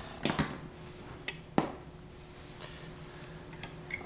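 Sharp clicks and taps of a tool and metal parts on the partly stripped Daisy 499B BB gun's action. Three or four come in the first second and a half, then fainter ticks near the end.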